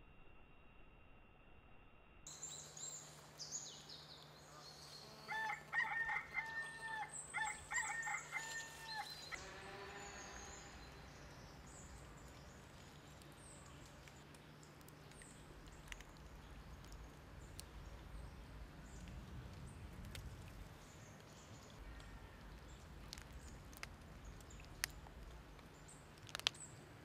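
A rooster crowing a couple of times, about five to nine seconds in, over a faint outdoor background of small birds chirping.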